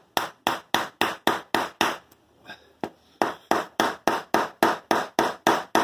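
Hammer driving a glued wooden dowel into a hole in a wooden kayak gunwale joint: quick, even taps, about three or four a second, with a pause of about a second partway through.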